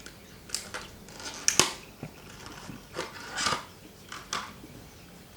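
SSD retail packaging being opened by hand: a run of short crackles and clicks, about half a dozen, the loudest near one and a half seconds in.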